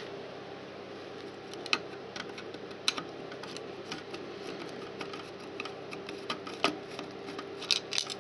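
Small screwdriver undoing the screws that hold a circuit board into a plastic siren housing: scattered sharp clicks and ticks at uneven intervals, with a quick cluster near the end.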